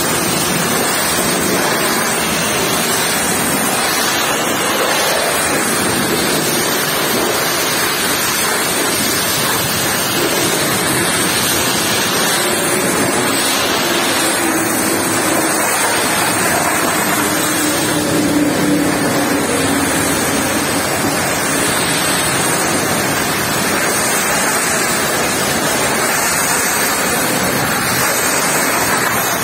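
High-pressure water jet from a pressure-washer lance spraying against a truck trailer's tarpaulin curtain side: a steady, loud hiss of spray.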